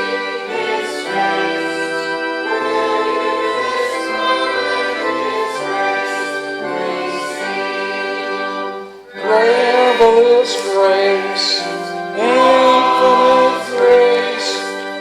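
Music with singing, typical of a hymn sung with instrumental accompaniment, made up of long held notes. About nine seconds in the music breaks off for a moment, then a new, louder phrase begins.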